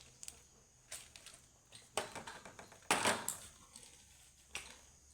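Small plastic clicks, knocks and rattles from handling a toy remote-control excavator, a handful of separate sharp clicks with the loudest about two and three seconds in.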